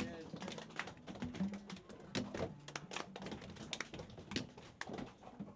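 Scattered light clicks and taps, irregular, from gloved hands and equipment being handled at a lab bench, with brief low hums underneath.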